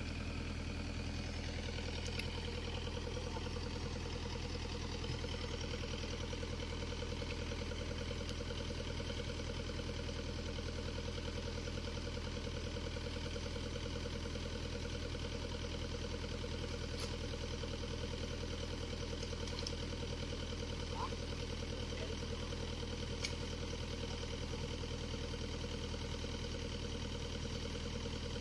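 Engine of a heavy machine, such as an excavator, idling steadily at an unchanging speed.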